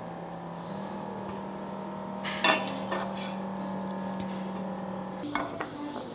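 Cooked instant noodles and broth are served from a pot into a ceramic bowl. A plastic pasta server and a ladle knock against the bowl and the pot a few times, sharpest about two and a half seconds in, with a few more knocks near the end.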